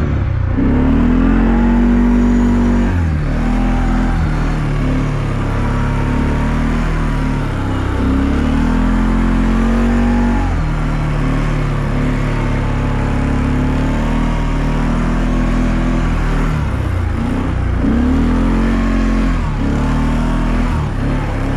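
A four-wheeler (ATV) engine running hard while the ATV is ridden through deep snow. The engine revs up and drops back again and again, its pitch rising and falling as the throttle is worked.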